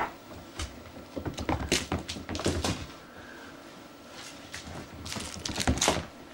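Scattered soft knocks, scuffs and rustles of kittens scampering and a person stepping about on carpet, coming in uneven bunches with a quieter spell a little past halfway.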